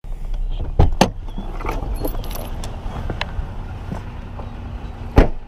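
Low steady rumble of a running vehicle, broken by a few sharp knocks and rattles: two about a second in, one near the middle and the loudest near the end.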